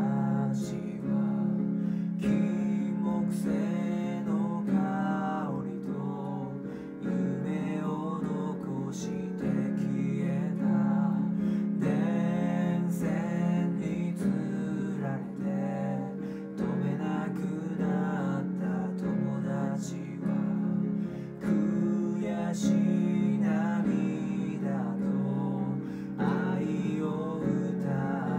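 A man singing a Japanese song over a strummed acoustic guitar.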